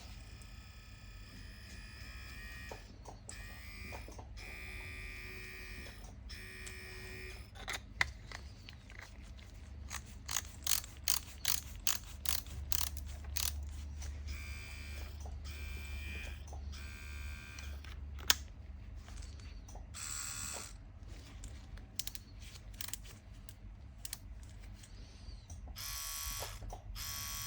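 A tattoo pen machine's small brushless motor buzzing in several short runs, with clicks of parts being handled and fitted, a quick series of them about a third of the way through.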